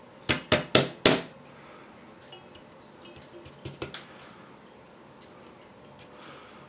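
A handheld lighter being flicked: four sharp clicks in quick succession about a second in, then a few fainter ticks. No alarm tone sounds.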